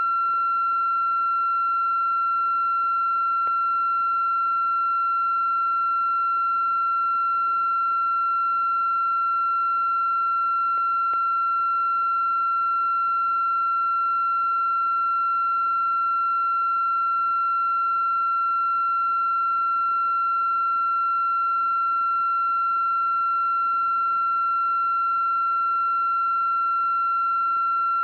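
A steady, unbroken high-pitched electronic tone with fainter overtones above it, over a faint hiss.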